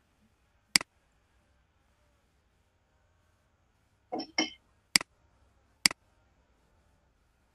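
Computer mouse button clicks: three sharp single clicks, about a second in and then about five and six seconds in, with a pair of shorter, duller sounds just before the second click.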